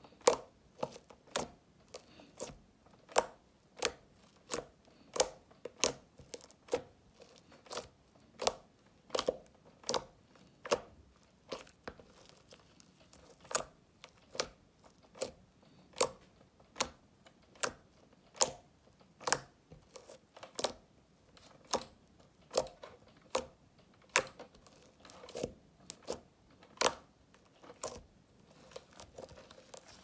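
Glitter slime being pressed and poked with the fingers, each press giving a sharp click or pop in an even rhythm of roughly one to two a second.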